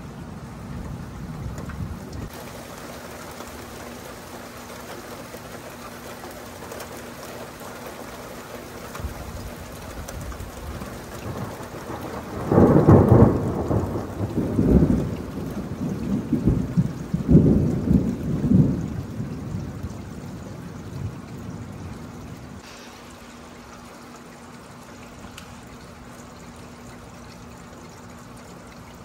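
Thunder rumbling over steady rain. About twelve seconds in, a loud run of several close peals breaks out and goes on for some eight seconds before it dies back to the rain.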